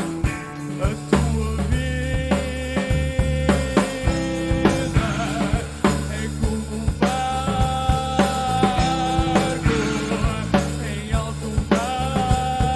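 Rock band playing a passage without vocals: a drum kit keeps a steady beat under bass notes and held melody lines from the band's keyboard and guitar.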